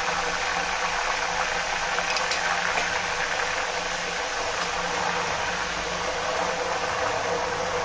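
Banana slices deep-frying in hot oil on high flame, sizzling steadily with salt-and-turmeric water just added: the water and the bananas' own moisture boiling off in the oil.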